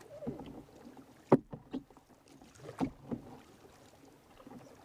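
Kayak paddle strokes in calm water: irregular splashes and drips from the paddle blades, the loudest a single sharp splash just over a second in.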